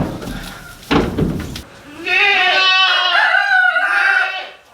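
A goat bleats once loudly in a long, wavering call that starts about two seconds in and dies away near the end. It follows two sharp knocks a second apart at the start.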